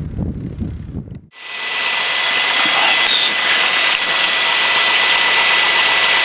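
Cessna 172's engine and propeller heard from outside with wind on the microphone, cut off after about a second. Then the steady drone of the Cessna 172P's four-cylinder engine running inside the cockpit, even and unchanging.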